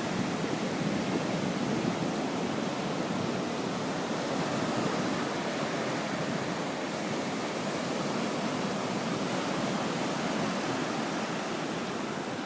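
Surf washing in, a steady even hiss of waves with no separate breaks standing out.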